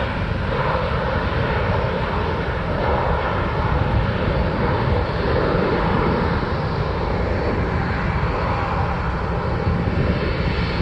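Airplane engines running at takeoff power as an airliner departs: a steady, loud engine noise with a faint steady whine.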